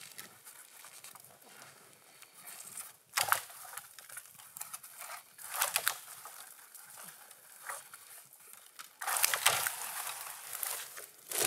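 A dead standing tree being rocked and pushed over by hand: several sudden bursts of cracking wood and crunching snow, the loudest and longest about nine seconds in as the trunk gives way and tips over.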